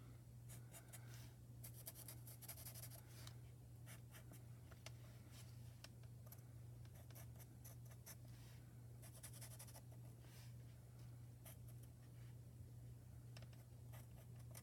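Faint scratchy strokes of a Parkoo alcohol marker's tip colouring a tiny cut-out paper piece, over a steady low hum.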